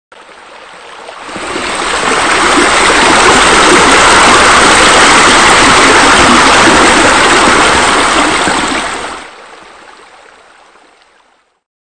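Running, splashing water, as from a pool's spillways and bubbler jets: a steady hiss of water. It swells in over the first two seconds and fades out from about nine seconds in.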